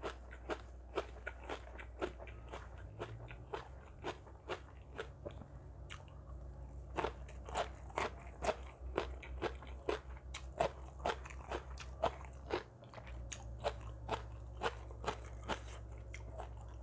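Close-up eating sounds: a steady run of crunchy bites and chewing, about two sharp crunches a second, from someone eating spicy seafood papaya salad.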